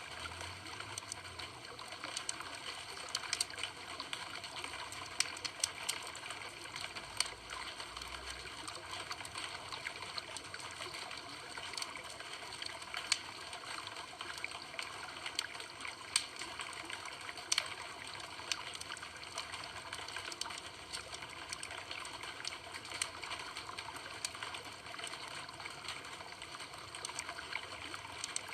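Campfire crackling: a steady hiss with frequent, irregular sharp pops from the burning wood.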